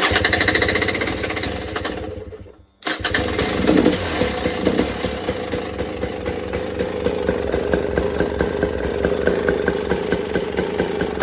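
KTM TPI two-stroke dirt bike engine running, freshly rebuilt with a new piston. It cuts out about two and a half seconds in, comes back abruptly, rises in a quick rev, then settles into a steady, evenly pulsing idle.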